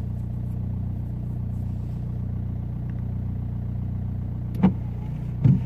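2007 Seat Ibiza engine idling steadily, heard from inside the cabin, with two short knocks near the end.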